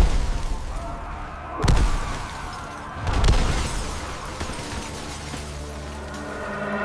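Three heavy booms with crashing, about a second and a half apart, each followed by a deep rumble: explosion and destruction sound effects.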